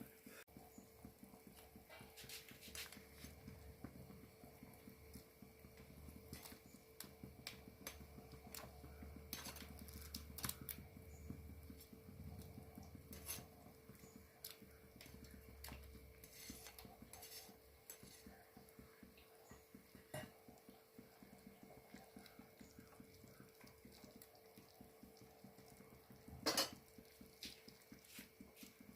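Faint, scattered clinks and taps of kitchen utensils and dishes, with one louder knock near the end, over a steady faint hum.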